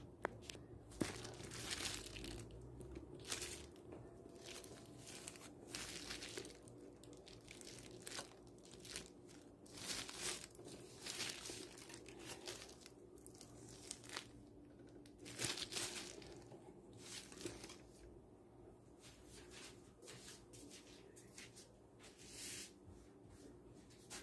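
Faint packaging crinkling and tearing in repeated short rustles of a second or so, several times over.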